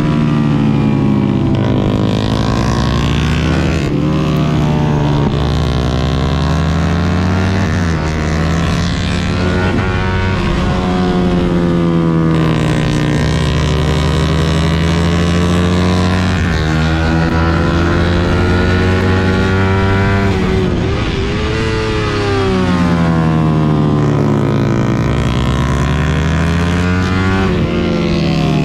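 Suzuki GSX-R150's single-cylinder engine under hard riding. It revs up repeatedly, dropping quickly in pitch at each gear change. Twice it winds down at length and then pulls up again.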